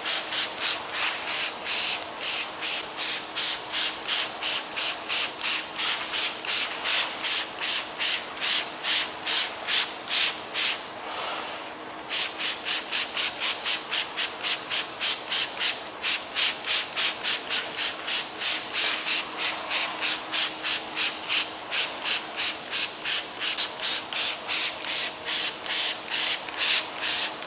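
Hand-held trigger sprayer pumped rapidly, each squeeze a short hiss of watery liquid paint stripper misted onto a car deck lid, about three to four squirts a second. The spraying stops briefly about eleven seconds in, then goes on.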